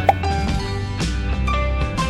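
Background music with plucked acoustic guitar notes in a steady rhythm. A short, sharp blip sounds about a tenth of a second in.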